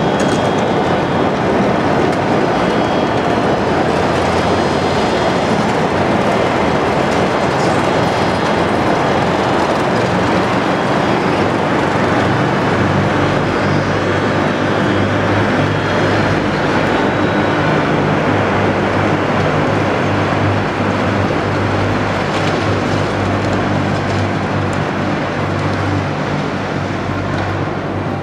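A large bulk carrier's steel hull sliding down the launching ways, a loud continuous rumbling and grinding that eases slightly near the end as the ship runs into the water.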